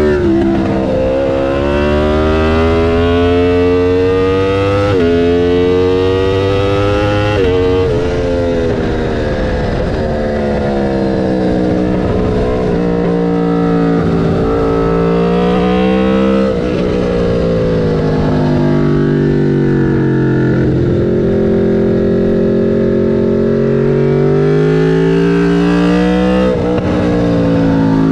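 Aprilia RSV4 F's V4 engine under way on track. The pitch climbs as it pulls, then drops sharply at each of several gear changes, with stretches where the revs sag slowly or hold level.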